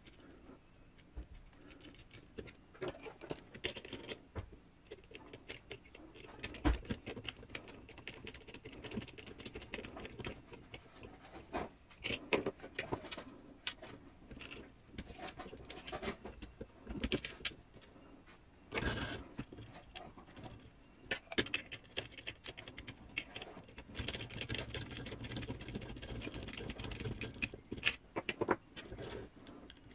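Hand assembly of a 1/10 scale RC crawler's metal chassis and leaf-spring mounts: irregular clicks, taps and small rattles of screws, nuts and a hex driver against metal and plastic parts, with a louder knock about two-thirds of the way through.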